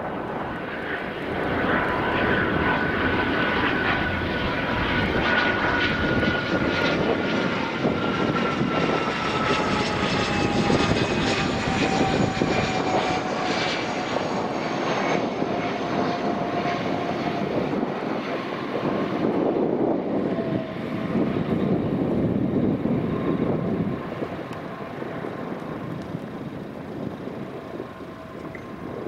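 Business jet's turbofan engines on landing approach: a steady jet noise with thin whining tones that slowly fall in pitch as it passes, dropping away near the end.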